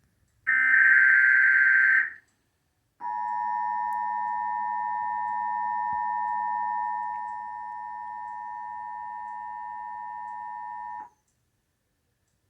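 The last burst of an Emergency Alert System data header, a harsh digital screech lasting about a second and a half. After a second of silence comes the EAS attention signal, a steady two-tone alarm held for about eight seconds. It drops in level partway through, then cuts off suddenly.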